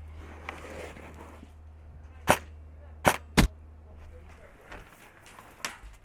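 Airsoft guns firing single shots: three sharp cracks about a second apart, the last two close together, then a fainter shot near the end.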